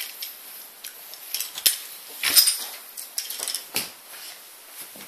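Toy trains and track pieces clicking and clattering as they are pushed and handled, with a few sharper knocks spread through.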